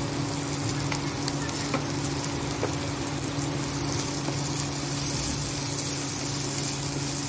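Sliced vegetables sizzling in hot oil in a nonstick kadhai as they are stir-fried with a slotted spatula, with a few light taps of the spatula in the first few seconds.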